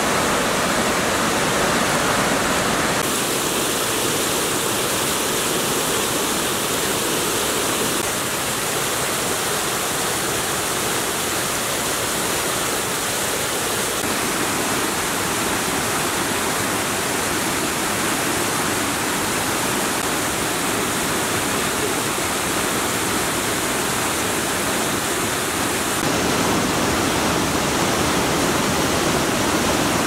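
Tomara Waterfall's cascades pouring over rock in a dense, steady rush of water. The tone of the rush changes abruptly about three seconds in and again near the end.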